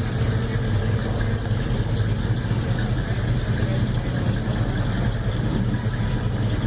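Car engine idling steadily, with an even low hum and no change in revs.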